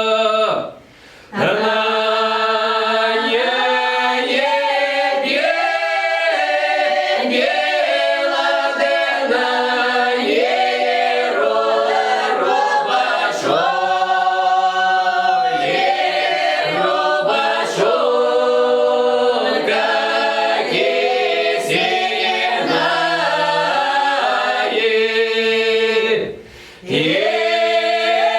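Folk ensemble singing a Russian lyrical folk song a cappella, several voices together in long drawn-out phrases. The singing breaks off briefly twice for breath, about a second in and near the end.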